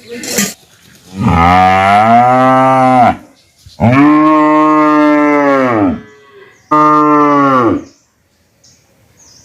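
A cow mooing three times: two long, steady moos of about two seconds each, then a shorter one.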